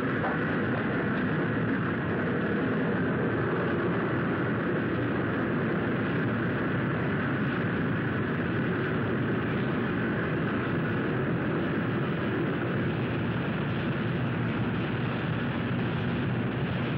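Cutting torch burning steadily as it cuts through a PCC streetcar's steel body for scrap: a continuous, even hissing rumble with no breaks.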